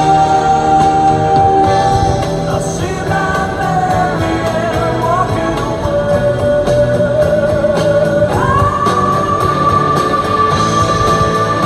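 Background music: a song with a singer holding long notes over guitar and a steady beat, the melody stepping up to a higher held note about eight seconds in.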